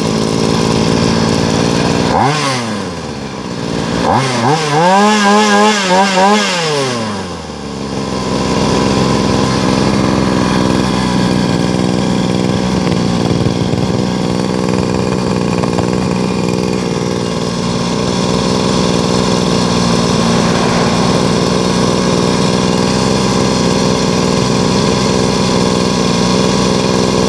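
Small two-stroke brush-cutter engine (a 260-class 134F single-cylinder) running. It revs briefly and drops back about two seconds in. It revs again and holds for a couple of seconds before falling back. From about eight seconds in it settles into a steady run.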